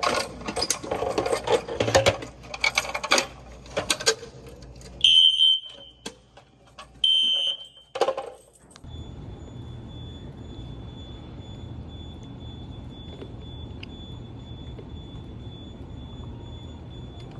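Fire alarm signals sounding during a test: a loud, harsh alarm for the first four seconds or so, then two high-pitched beeps about two seconds apart. It cuts off suddenly, leaving a faint steady high tone over a low hum.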